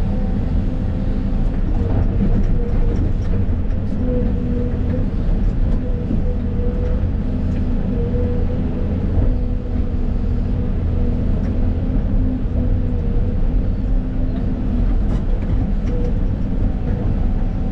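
Tracked excavator's diesel engine and hydraulics running steadily under working load inside the cab: a heavy drone with a steady whine held over it.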